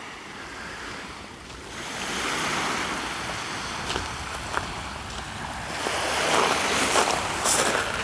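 Sea of Azov surf breaking on the shore, swelling twice, with wind on the microphone.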